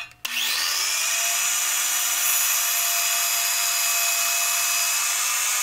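Miter saw switched on about a quarter second in, its whine rising as the blade spins up, then running steadily at full speed while the blade is brought down through a glued-up block of plywood and hardboard to cut a thin slice.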